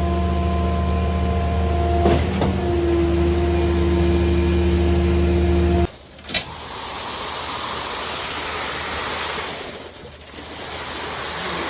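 A motor or engine runs with a steady hum at a fixed pitch, then cuts off abruptly about six seconds in. A steady hiss follows, with a short click just after the cutoff.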